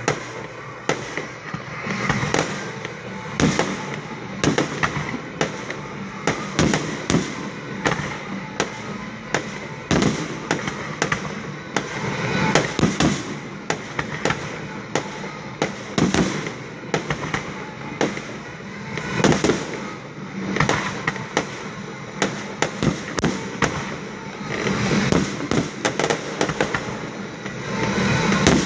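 Fireworks display: aerial shells bursting in a continuous run of sharp bangs, with swells of denser crackling every few seconds.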